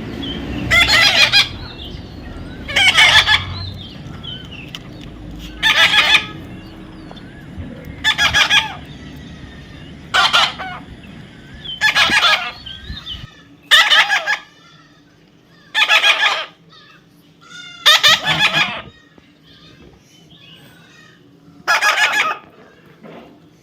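A parrot calling out loudly over and over: about ten short, shrill squawks, roughly one every two seconds.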